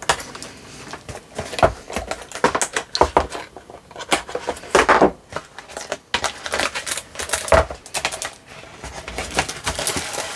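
A thin card box being slit open and handled close up: irregular clicks, taps and rustles of card as the flap is opened and a plastic-wrapped paper pad is slid out.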